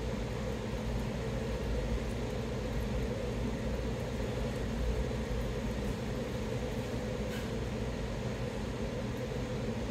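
Steady low mechanical hum with an even hiss: room background noise, with no distinct events.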